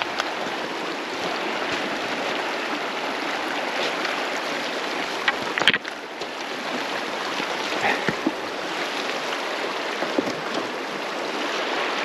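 Shallow creek running over stones in a riffle, a steady rushing. A single sharp knock sounds about halfway through.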